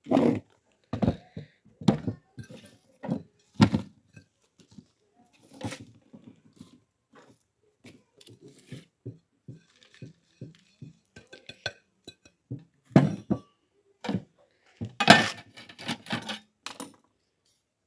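Irregular snaps, knocks and rustles of a head of cauliflower being trimmed by hand, its leaves and stalks broken off and the pieces set down in plastic bowls and on a plate. Near the end, a quick run of scraping strokes as the cauliflower is rubbed on a small handheld grater.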